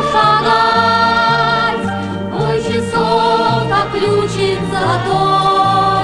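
Song with a children's choir singing over orchestral accompaniment, a bass line moving note by note beneath.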